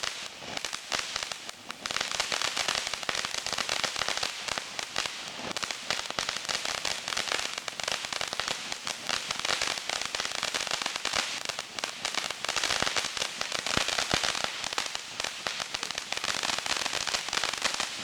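Consumer firework going off in a long, rapid run of crackles and pops, dense and loud, picking up about two seconds in and carrying on without a break.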